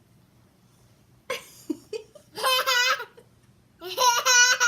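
Young child laughing: two long, high-pitched laughs with a wavering pitch, the second near the end, after a short vocal sound about a second in.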